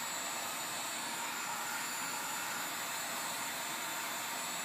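Handheld heat gun blowing steadily, a hiss of hot air with a thin high whine, re-melting the glue that seals a headlight housing.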